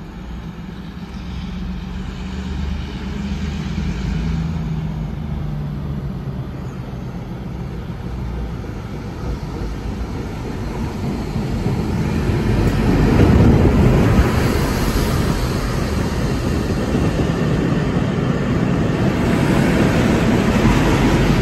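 Long Island Rail Road laser rail-cleaning train approaching behind its diesel locomotive. The engine's low drone grows louder as it nears, then gives way to the loud rumble of the train passing close by.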